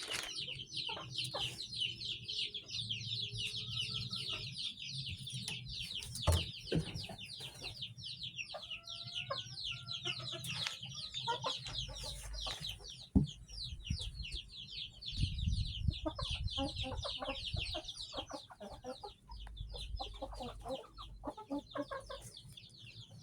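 A crowd of young chicks peeping continuously: a dense chorus of short, high, falling peeps, with a few scattered knocks.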